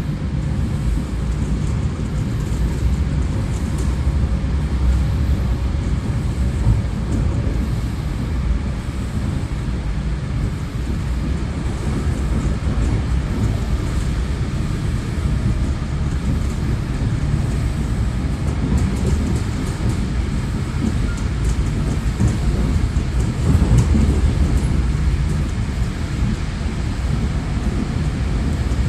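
Electric commuter train running, heard from inside the carriage: a steady low rumble of wheels on the rails.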